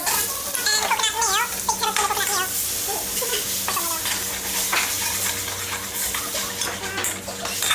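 Hot steel wok sizzling as liquid is poured in from a metal jug and stirred with a metal spatula, throwing up steam; the hiss runs steadily, with scraping from the spatula against the pan.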